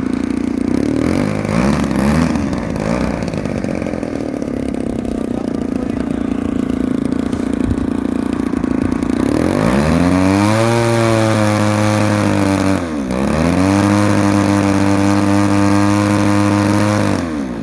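DLE 35RA two-stroke gasoline engine on an RC airplane, turning a 19x10 propeller. It idles steadily, then is throttled up about ten seconds in to a higher, steady run. About three seconds later it dips briefly and comes back up, then is throttled back near the end.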